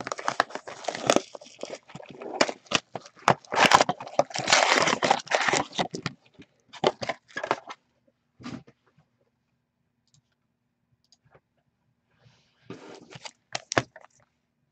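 A cardboard hockey card box being opened by hand and its wrapped packs pulled out and stacked, with dense rustling, crinkling and tearing of cardboard and pack wrappers. The handling stops for several seconds in the middle, and more crinkling follows near the end.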